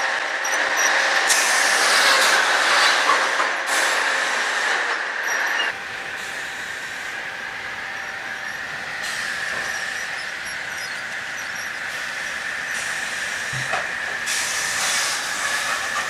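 Sawmill machinery running: a steady high-pitched whine over a hiss of mechanical noise, with a few scattered knocks. The sound drops and changes abruptly about six seconds in.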